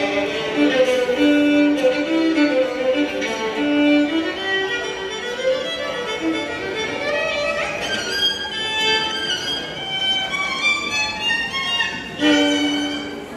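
Solo violin playing a melody, moving from lower notes to a higher passage about eight seconds in, then ending on a strong held low note near the end.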